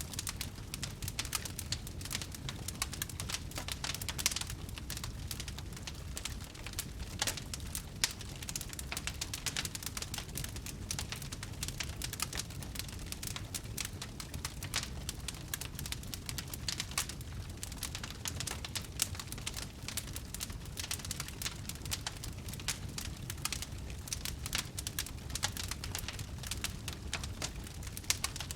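Fire crackling: frequent irregular pops and snaps, a few of them louder, over a steady low rumble.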